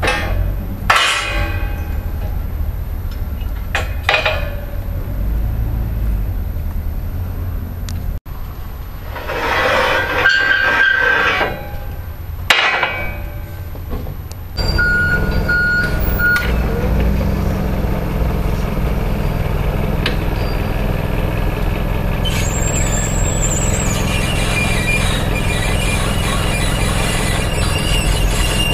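Steel forklift hook attachment clanking and scraping as it is slid onto the forks, several separate knocks over a low steady hum. About halfway through, a forklift truck engine takes over, running steadily, with a higher whine joining in the last few seconds.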